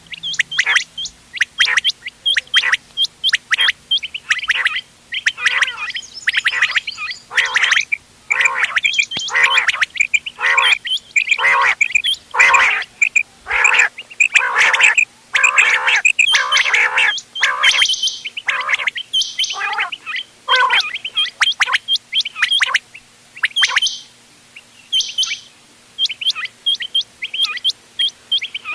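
Quails calling over and over in quick, irregular runs of short, sharp downward-sweeping notes, several a second, with brief pauses near the end. It is a mixed recording of chinga quail calls, the kind played to lure quail in for hunting.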